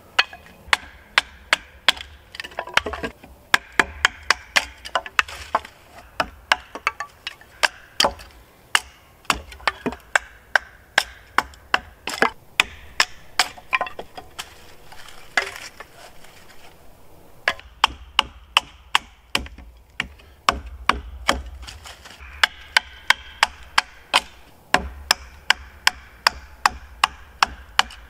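A knife being batoned through small sticks with a wooden baton, splitting them into kindling: a run of sharp wooden knocks, about two a second, with a short pause just past halfway.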